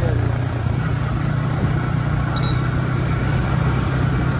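Motorcycle running at a steady cruising speed, its engine note a constant low hum under a steady rush of wind and road noise.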